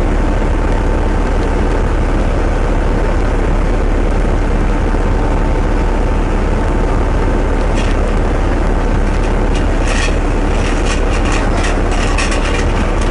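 Steady low rumble aboard a ship at sea, with a faint steady tone above it and scattered clicks and knocks in the last few seconds.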